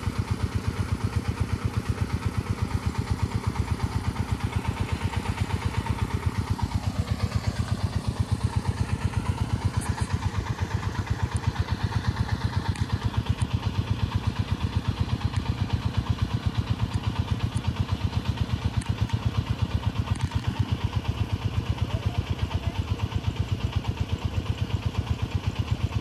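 An engine running steadily with a fast, even pulse, its pitch dipping and rising briefly about a quarter of the way in.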